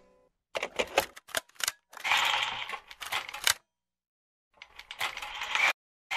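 Rapid mechanical clicking and rattling in several short bursts with brief silences between them. A longer, denser rattle comes about two to three and a half seconds in.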